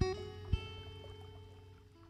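Background music: plucked notes struck at the start and again about half a second in, ringing out and slowly fading.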